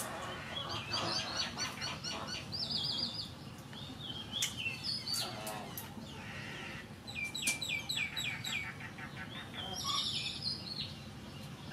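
Small birds chirping in quick repeated trills of short high notes, with a few sharp clicks in between.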